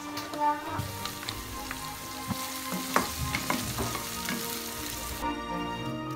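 Chopped garlic and shallots sizzling in hot oil in a non-stick wok, stirred with a plastic spatula that scrapes and taps the pan now and then. The sizzle starts just under a second in and cuts off about five seconds in.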